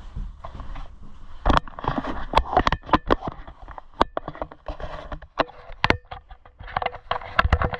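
Handling noise: a quick, irregular run of knocks, clicks and rustles as things are picked up, moved and set down at close range. A faint steady tone joins in about halfway through.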